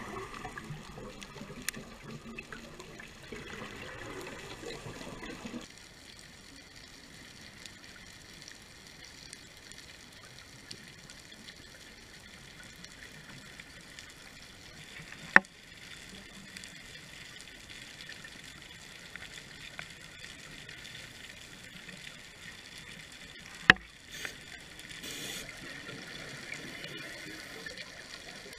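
Underwater sound heard through a dive camera's housing. For about the first six seconds a scuba diver's regulator exhaust bubbles rush, then cut off abruptly, leaving a quieter steady hiss. Two sharp clicks come about halfway through and again near the end.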